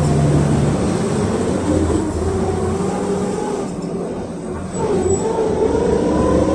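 PAZ-32054 bus heard from inside the cabin, its ZMZ-5234 V8 engine running on liquefied petroleum gas and pulling steadily. About four and a half seconds in it eases off briefly, then its pitch rises steadily as the bus accelerates again.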